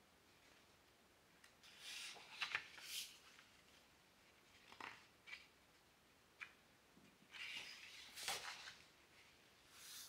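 Paper pages of a hardcover book being turned by hand, a soft rustle about two seconds in and again near eight seconds, with a few small taps and clicks in between.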